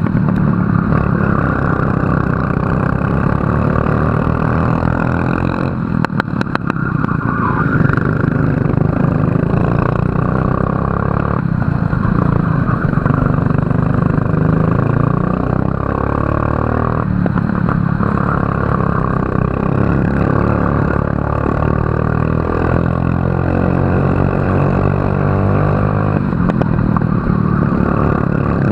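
Racing kart engine running hard, its pitch rising and falling repeatedly as it accelerates and slows through corners. Around six seconds in there is a brief rattle of clicks.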